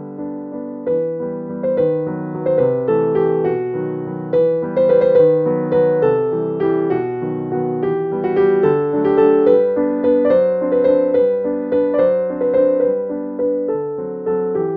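Background music: a gentle piano or electric-piano melody over chords, notes struck one after another.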